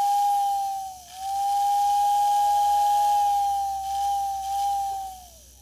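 American Flyer whistling billboard's motor-driven whistle giving a steady two-tone whistle. It dips briefly about a second in, then holds, and falls in pitch as it dies away near the end. It now whistles properly after the motor's wires were swapped to correct its turning direction.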